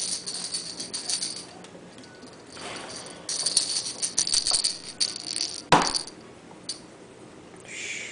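A jingling cat toy shaken in two bursts, the second longer, with a single sharp knock about two-thirds of the way in.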